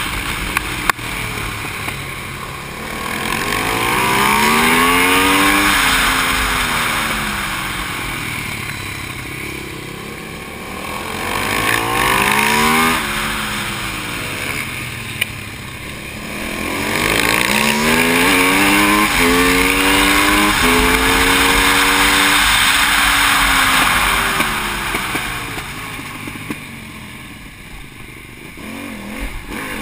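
Aprilia SXV supermoto's V-twin engine heard from on board at race pace, its pitch climbing several times as it accelerates and falling away as it backs off for corners, over a low rush of wind.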